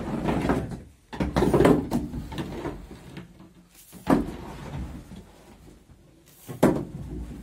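Hard objects knocking and scraping: a longer scraping clatter about a second in, then single sharp knocks about four seconds in and near the end.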